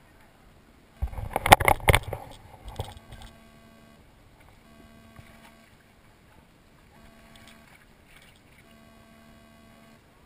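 Water splashing and sloshing against an inflatable tube, a loud cluster of splashes about a second in lasting about a second, then a few smaller ones and quiet lapping.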